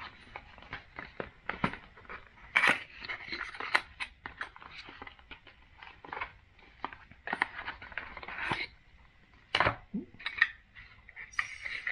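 Stiff white cardboard packaging handled by hand: an inner box lifted out and its lid slid open, with irregular scraping, rustling and small taps.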